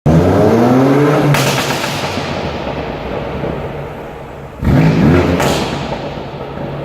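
BMW M4's twin-turbo straight-six is revved twice, about three seconds apart. As the revs fall after each blip, the exhaust crackles and pops.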